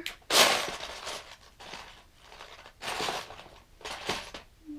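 Loose Lego bricks clattering as a hand rummages through a plastic bin of pieces, in three short bursts, the loudest about half a second in.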